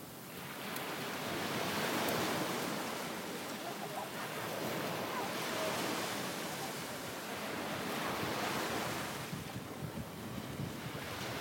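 Ocean surf washing ashore, the rush of the waves swelling and easing every few seconds, with wind on the microphone.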